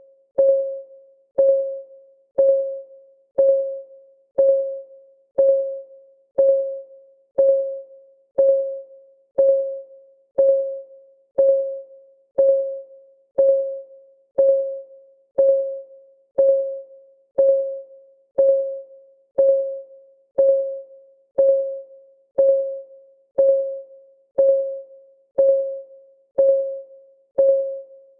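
Countdown timer's ticking sound: one tick a second, each a short click with a ringing, pitched tone that fades before the next.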